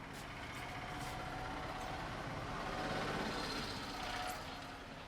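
A motor vehicle passing on the road, its engine and tyre noise swelling to a peak about three seconds in and fading away after about four seconds.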